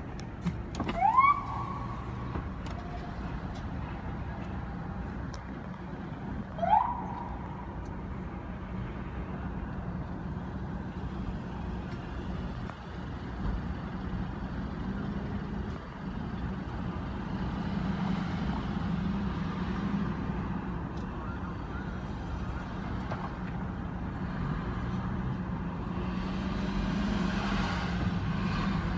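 Two short police siren whoops, each a quick rising chirp, about six seconds apart, over steady street traffic noise with idling engines.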